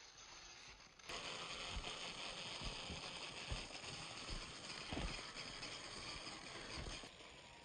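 Axial Capra 1.9 RC trail buggy driving over a forest trail. It is quieter for about the first second, then jumps to a steady, noisy rush of tyres over dry leaves and dirt, with irregular low thumps as it bounces over roots and rocks.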